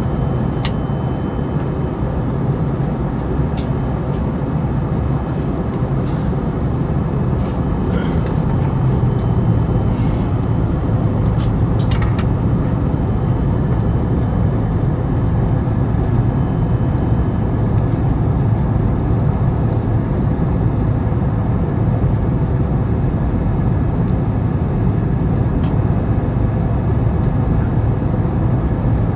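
Steady low rumble of wind buffeting the microphone, mixed with the distant engine noise of an Airbus A321neo on approach. A few faint clicks come in the first half.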